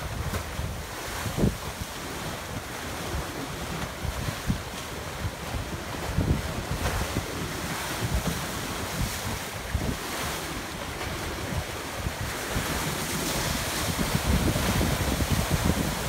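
Ocean surf surging and breaking against black lava rock in a narrow inlet, a steady churning rush that swells louder near the end. Wind buffets the microphone with low thumps.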